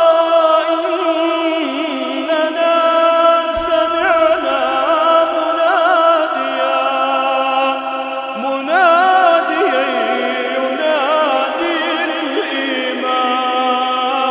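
Melodic chanted Quran recitation (tajweed) by a male reciter: long held notes with ornamented, wavering pitch turns and only brief pauses between phrases.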